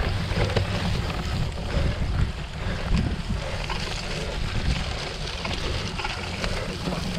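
Wind buffeting the microphone with a heavy low rumble, over the rattle and scattered clicks of a cyclocross bike riding over rough ground.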